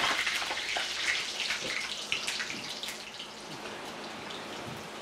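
Hand-cut French fries sizzling and crackling in hot oil during their second fry, to finish them off. The sizzle is loudest at first and eases off over the few seconds.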